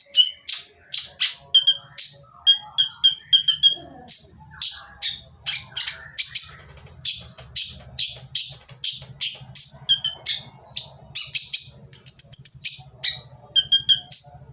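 Kolibri ninja (konin) sunbird calling without pause: a fast string of sharp, harsh high chirps, about three or four a second. This is the rough, noisy 'kasar' call used to provoke other konin into answering and singing. A faint low hum runs underneath from about four seconds in.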